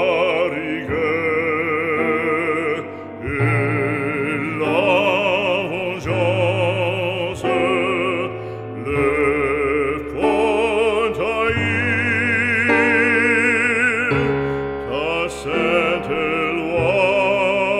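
Background music: an operatic voice singing sustained notes with strong vibrato over instrumental accompaniment.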